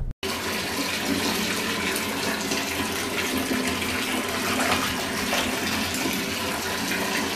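Water from a shower running steadily into a bathtub, spraying and splashing on the tub floor.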